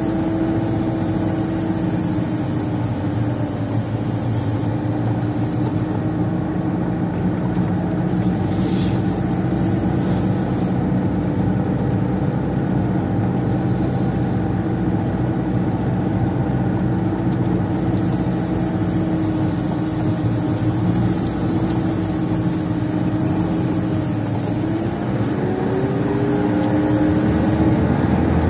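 Engine of a Zyryanin all-terrain vehicle running steadily under way, heard from on board. Its note rises about 25 seconds in as the revs pick up.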